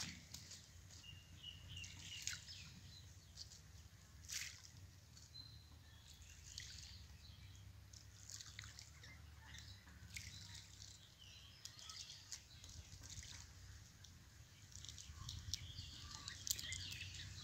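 Faint rural outdoor ambience with small birds chirping now and then, and a few soft ticks about two and four seconds in.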